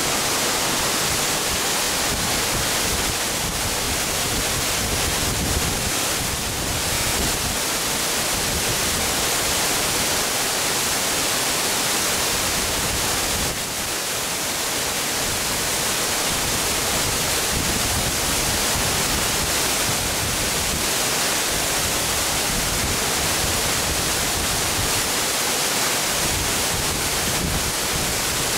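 Large waterfall crashing into its plunge pool: a steady, dense rush of falling water.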